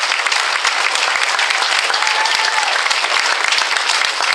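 Crowd applauding, a steady dense clapping of many hands.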